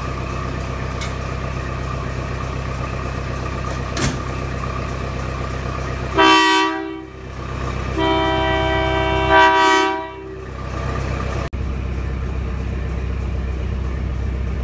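Engine of a miniature GP38-style locomotive idling steadily. A little past the middle its horn sounds twice, a short blast and then a longer one.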